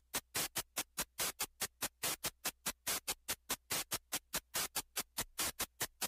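Background music: an electronic track's opening beat of quick, even ticks, about five a second.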